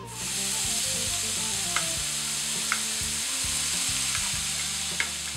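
Grated beetroot and carrot dropped into hot oil in a frying pan: the sizzle starts suddenly as they go in, then carries on as a steady frying hiss. A few light clicks are heard over it.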